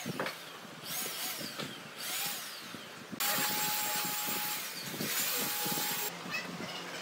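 Pine wood blocks knocking together as they are set and pushed into place by hand. From about three seconds in to about six seconds, a power tool runs with a loud hiss and a steady whine, then stops suddenly.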